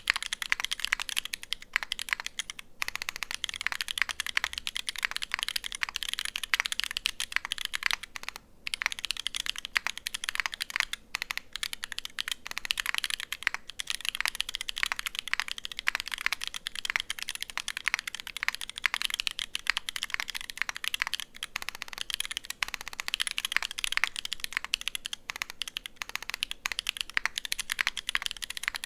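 Fast continuous typing on a Unikorn 60 mechanical keyboard with lubed Holy Panda tactile switches in a brass plate and GMK keycaps: a dense stream of key clacks, with short pauses about three and eight seconds in.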